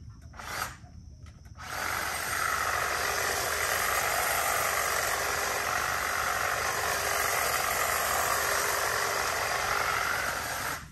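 Hedge trimmer running as it cuts through ficus foliage. After a brief burst, it starts about two seconds in, runs steadily for about nine seconds, and cuts off suddenly near the end.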